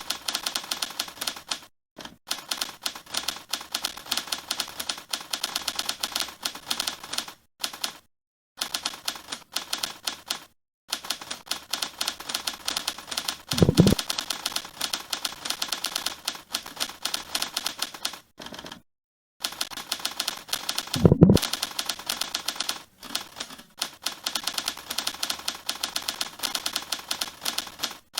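Rapid Lincoln typewriter keystroke clacks, played back as recorded samples by the Mechvibes keyboard-sound program while someone types fast on a computer keyboard. The clacks come in bursts with short pauses. Two heavier, deeper clunks stand out, about 14 and 21 seconds in.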